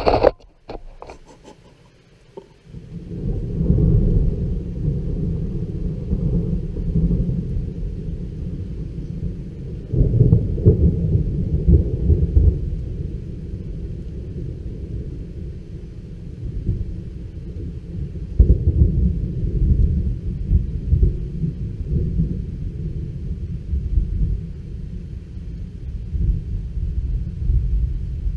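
Long rolling thunder: a low rumble that builds a few seconds in and rolls on, swelling again twice.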